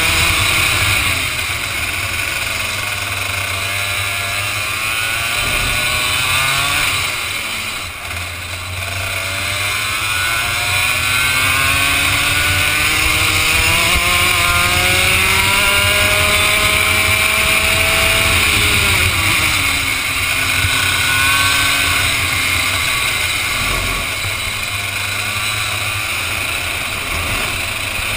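Vortex ROK two-stroke kart engine at speed, its pitch climbing steadily along a straight and dropping sharply twice under braking for corners, over a steady hiss.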